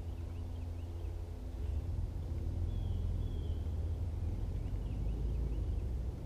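Outdoor ambience dominated by a steady low rumble, with a distant motor hum that fades out about a second and a half in. Faint bird chirps sound throughout, with a short whistled bird note about three seconds in.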